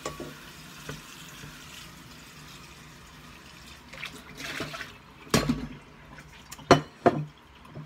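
Kitchen tap running as the stainless steel mixer bowl is rinsed out. Then a sharp knock about five seconds in and two more close together near the end.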